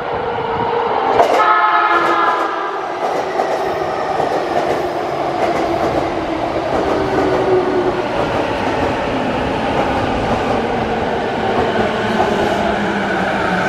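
A JR East E233-series electric train sounds a short horn blast about a second in, then runs past the platform, its motor whine shifting in pitch over the rolling noise of the cars.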